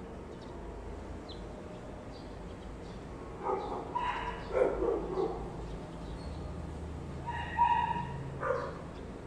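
A dog barking and yipping in two short bouts, the first about three and a half seconds in and the second near eight seconds.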